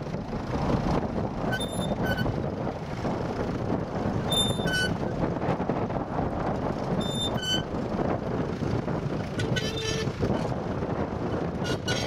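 International B-250 tractor's diesel engine running steadily under load while pulling a mounted plough through turf. Short high squeaks come in pairs about every two and a half seconds.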